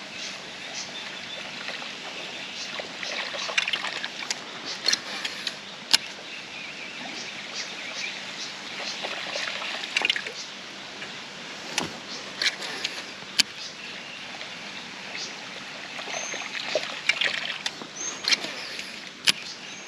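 Water trickling and sloshing around a kayak, with scattered light clicks and knocks.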